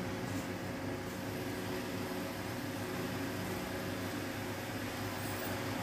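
Steady low hum and hiss of a running machine, unchanging throughout.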